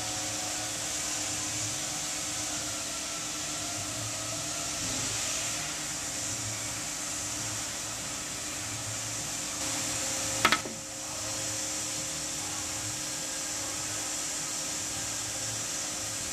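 Steady whir of a small motor or blower, with one sharp click about ten and a half seconds in.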